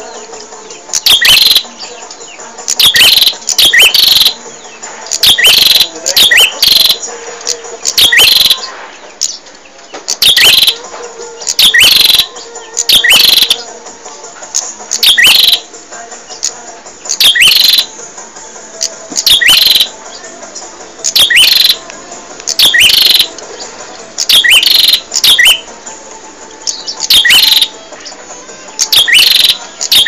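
Prenjak, a small Indonesian songbird, singing loudly and continuously in sharp, high chirps. Each chirp drops quickly in pitch, and they come in quick clusters every second or two.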